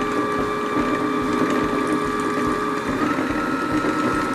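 Singer Confidence sewing machine's motor running at speed to wind a bobbin, a steady whine with the bobbin winder spinning. Its pitch shifts slightly about three seconds in, and the sound stops right at the end as the winding finishes.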